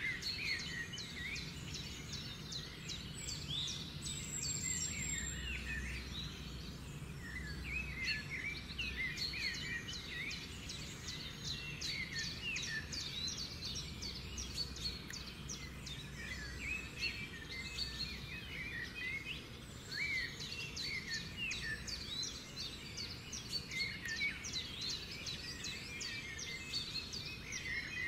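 Birds chirping: a dense chatter of many short, overlapping calls, over a low steady background noise.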